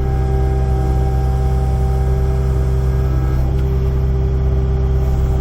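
Kubota excavator's diesel engine running steadily, with an even low hum.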